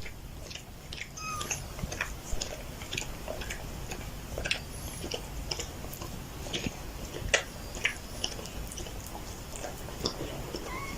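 A pet animal making irregular small clicking, chewing-like sounds, with a few faint high chirps now and then.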